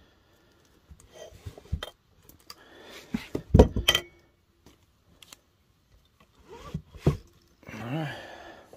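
Sealed Polaris 700 two-stroke crankcase being turned over and set down on a wooden bench: scattered knocks, scrapes and clinks of the metal case and its studs. The loudest cluster comes about three and a half seconds in, with a few more knocks about seven seconds in.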